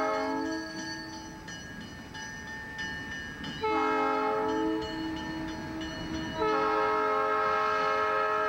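Diesel locomotive multi-chime air horn sounding: a blast that ends just after the start, a long blast from about three and a half seconds in, then after a very short break another blast that carries on. The rumble of the passing Alco locomotives fills the gaps between blasts.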